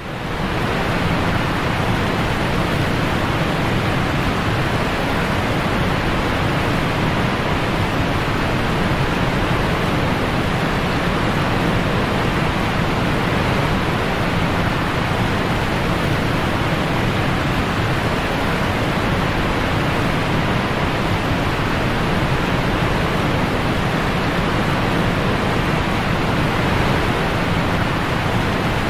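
Whitewater rapids rushing loudly and steadily, heard from right at water level on a kayak running through them.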